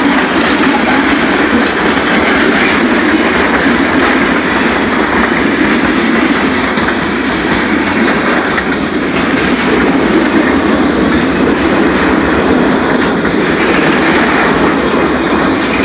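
Freight train cars rolling past, their steel wheels running steadily on the rails.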